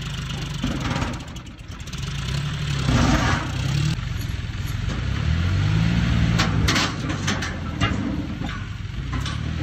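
Tractor diesel engine running close by, its pitch rising and falling as the throttle changes, with a few metallic clanks and rattles in the second half.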